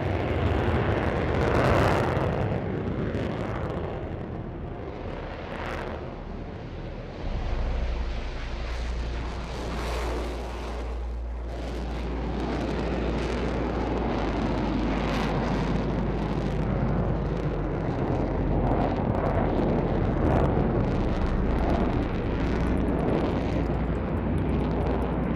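Lockheed Martin F-35's single Pratt & Whitney F135 jet engine running in afterburner: a loud, steady rushing rumble with scattered sharp crackles, growing louder and deeper about seven seconds in.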